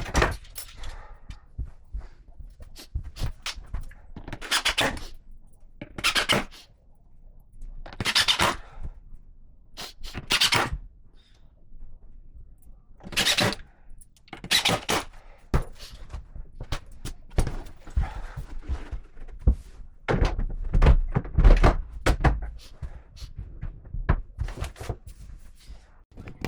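Panel cutting and fitting on a wardrobe: a series of short rasping strokes about every two seconds, then a run of sharp knocks and low thuds.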